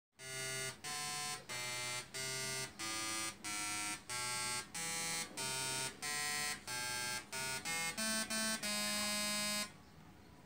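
Arduino-interrupted slayer exciter Tesla coil playing a melody as a series of harsh, buzzy notes, about fourteen of them, quickening near the end into a longer held final note that cuts off suddenly about a second before the end.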